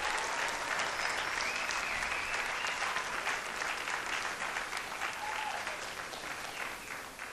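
Audience applauding, a dense patter of many hands clapping that slowly fades away toward the end.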